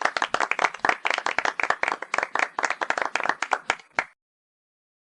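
Rapid, uneven hand clapping, about six to eight claps a second, that stops abruptly about four seconds in.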